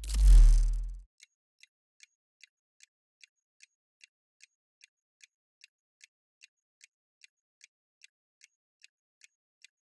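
A deep whoosh transition effect in the first second, falling in pitch. Then a faint ticking sound effect, about two and a half ticks a second, marking a quiz countdown timer.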